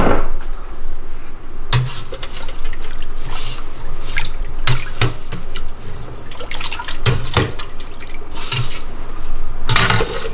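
Water running from a kitchen tap and splashing in a sink, with irregular splashes and knocks.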